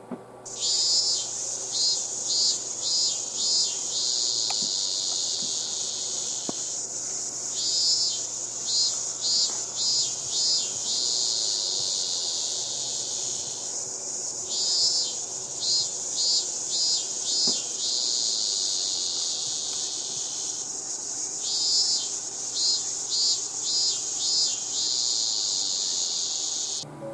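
Insects chirping: a steady high drone with groups of about five quick chirps that come back about every seven seconds.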